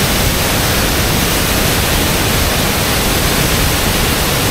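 Detian Waterfall's falling water heard close up: a loud, steady rush of water noise.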